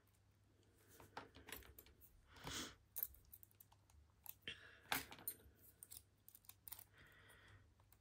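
Faint, scattered light clicks and clatter of a laminated padlock and its keys being handled.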